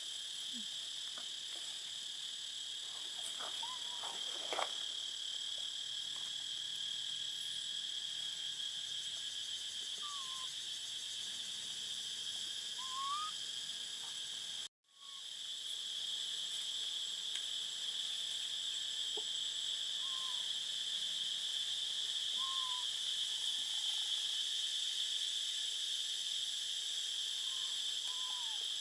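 Steady high-pitched insect drone in tropical forest, with a few short, bending calls now and then from a bird or animal. The sound cuts out for a moment about halfway through.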